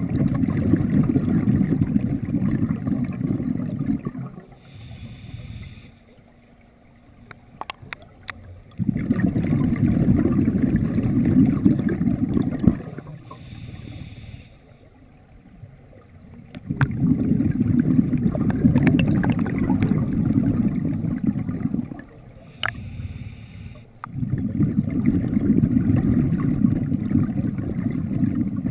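Scuba diver breathing through an open-circuit regulator close to the microphone: long rumbling exhalations of bubbles, each about four seconds, alternating with short hissing inhalations through the regulator. The pattern repeats four times.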